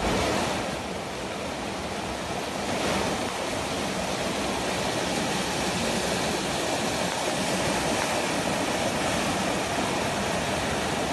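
Muddy floodwater rushing fast down a narrow concrete channel, a steady, dense rush of water.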